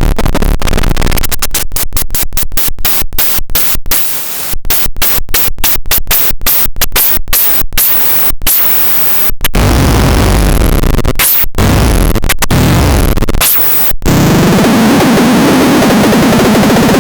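MELULAITE 5 noise box putting out loud, harsh electronic static. For the first half it is chopped into rapid stutters, about three a second. It then settles into a steady wall of noise, broken by a few brief dropouts, and near the end a low wobbling tone rises beneath it.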